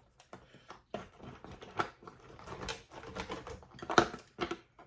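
Close-miked eating sounds: rapid, irregular wet smacks and clicks of chewing crawfish and mussels, with a few sharper snaps, the loudest near the end.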